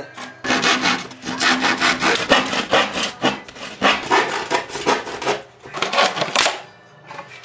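Handsaw cutting through wood in quick back-and-forth strokes, about two or three a second, which stop about six and a half seconds in.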